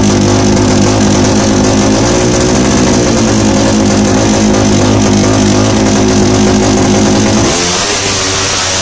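Drag-racing motorcycle engine held at a steady, high idle on the start line. Near the end the note changes abruptly and the revs begin climbing as the bike pulls away.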